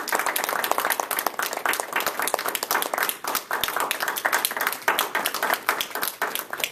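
Applause from a small audience: many hands clapping in a dense, steady patter that thins a little near the end.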